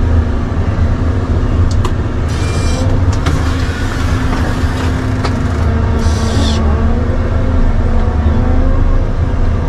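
A large engine running steadily with a low rumble and a constant drone. Two short hisses break in, about two and a half seconds in and again near six seconds.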